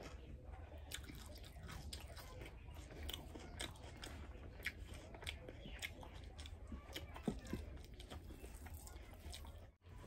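A person chewing and crunching fried food with her mouth close to the microphone: irregular crisp clicks and small wet mouth sounds. The sound briefly drops out near the end.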